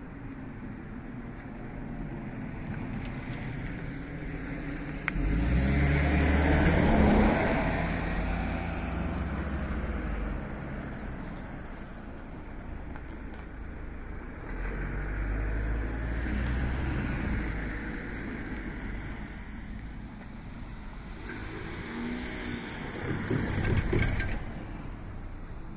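Road vehicles driving past one after another, three in turn. The first, starting sharply about five seconds in, is the loudest.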